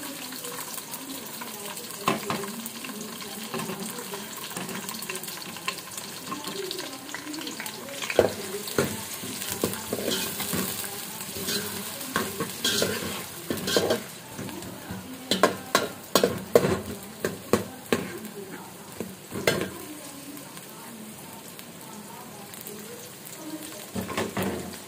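Sliced onions sizzling as they fry in oil in a metal pot, stirred with a metal ladle that scrapes and clatters against the pot. The clatters come thickest through the middle and die away near the end, leaving the sizzle alone.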